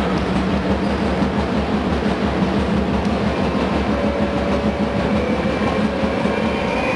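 Loud, steady crowd noise filling an indoor basketball arena during a free throw. From about four seconds in, thin held whistle-like tones rise above it.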